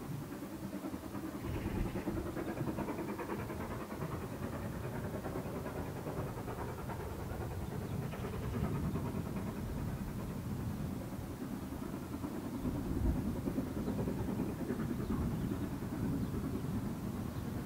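Steady low rumble of a steam locomotive working in the distance, GWR Modified Hall No. 6989 'Wightwick Hall', swelling a little in places.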